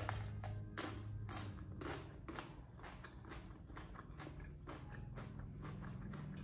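A man chewing a bite of raw green vegetable close to the microphone: a run of chews, about two or three a second, louder in the first two seconds and softer after. A low steady hum runs underneath.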